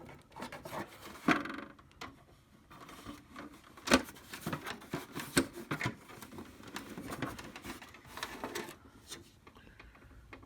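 Hard plastic printer housing being handled and worked loose: irregular clicks and knocks with rubbing and scraping, the sharpest click about four seconds in.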